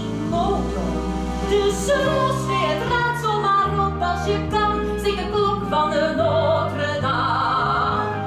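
A woman singing a musical-theatre solo in an operatic style, live, accompanied by piano and bass guitar, with long held notes over a sustained bass line.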